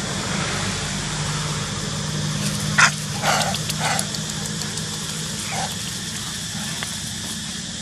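A few short, sharp bark-like animal calls come from about three seconds in, the first one loudest. A steady low hum runs underneath.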